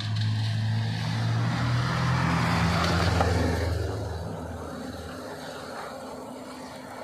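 Road vehicle passing on a wet street: tyre hiss swells to a peak about three seconds in and fades, over a steady low hum that dies away a little later.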